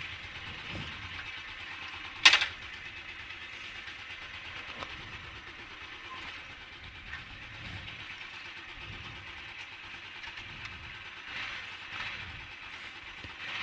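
Motorcycle engine idling quietly and steadily, with one sharp loud click about two seconds in.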